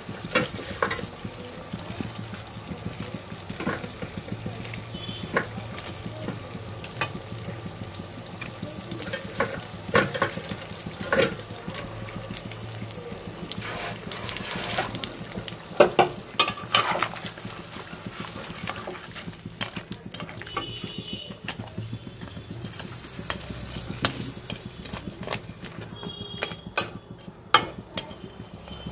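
Fish curry with fried fish pieces and potatoes simmering in a pan with a steady sizzle, and a metal spatula stirring and knocking against the pan again and again, loudest about halfway through.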